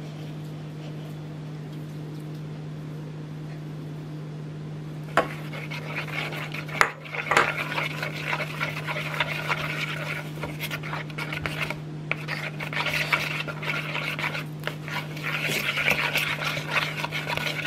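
Wooden craft stick stirring glue and glitter in a plastic bowl, scraping and knocking against the bowl's sides, starting about five seconds in. A steady low hum runs underneath throughout.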